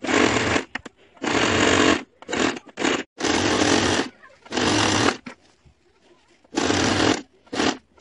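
Electric sewing machine stitching a seam in a string of short runs, each under a second, stopping and starting between them.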